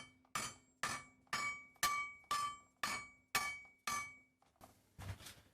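Hammer striking welded steel pieces in a series of about eight sharp, ringing metallic blows, roughly two a second, then a weaker blow near the end: a force test of fresh gasless MIG welds.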